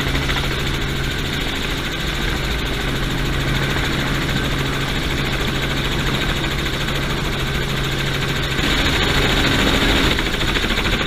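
Light helicopter's engine and rotor running steadily, heard from inside the open, doors-off cabin while it hovers low. It grows a little louder about three-quarters of the way through, then eases.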